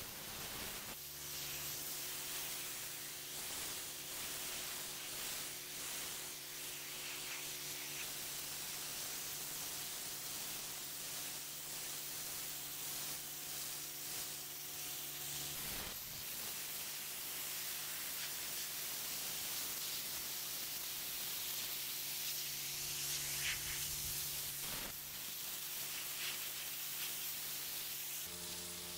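Pressure washer jet spraying water onto a paved driveway: a steady hiss.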